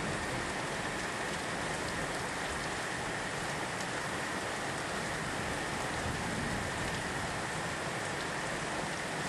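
Steady rain falling in a thunderstorm: an even hiss with faint scattered drop ticks.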